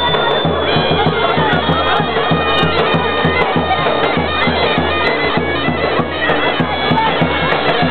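Davul and zurna: a shrill double-reed zurna playing a held, reedy melody over a davul bass drum beating a steady rhythm, loud and continuous.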